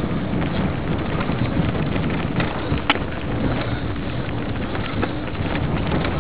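Wind buffeting the microphone and the steady rattle and crunch of fast travel over a leaf-strewn dirt trail, with many small clicks and one sharp knock about three seconds in.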